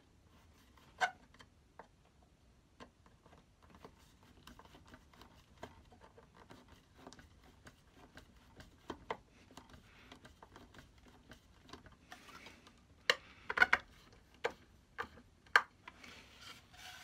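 A small screw being turned by hand into the brass hinge of an antique wooden box: faint creaks and scattered small clicks, with a few louder sharp clicks and knocks about three-quarters of the way through.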